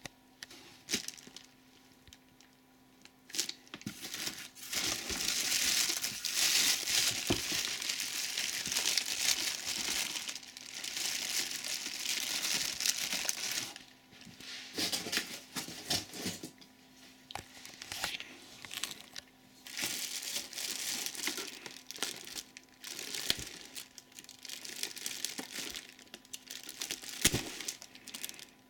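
Clear plastic bags around vacuum cleaner parts crinkling as they are handled in a cardboard box. The rustling runs on without a break from a few seconds in to about halfway, then comes in shorter bursts with a few small knocks.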